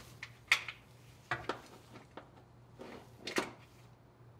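A handful of sharp, irregularly spaced metal clicks and clinks from a socket on a long extension working a top bellhousing bolt of an E4OD transmission loose and drawing it out, the loudest about three and a half seconds in.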